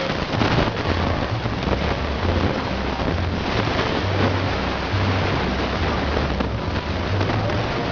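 Wind buffeting the camcorder's microphone, a loud, rough rush that covers the parade's own sound, with low notes underneath that change pitch every half second or so.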